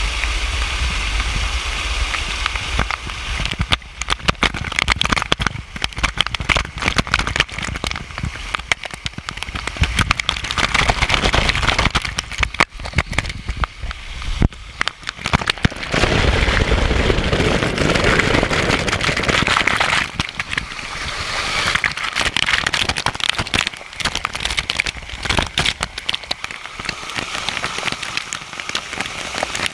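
Falling water splashing and spattering close to the camera, with many sharp crackling hits of drops, swelling and easing every few seconds.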